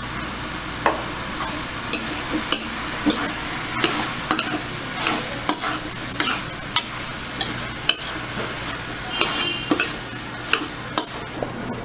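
Shredded cabbage stir-frying in a wok: a steady sizzle with irregular sharp clinks and scrapes of a utensil against the metal pan, roughly one to two a second.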